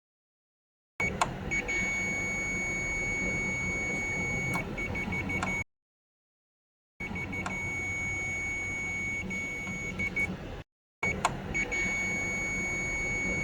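A steady high-pitched electronic beep tone, broken briefly a few times, with a few sharp clicks over low background machinery noise. It comes in three stretches separated by dead silence.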